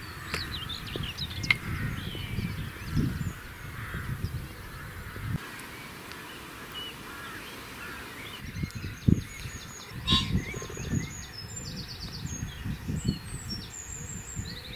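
Outdoor birdsong and calls: geese honking over farmland, with a small songbird's rapid high chirping trills coming in about halfway through. Low rumbles from wind or handling on the microphone lie underneath.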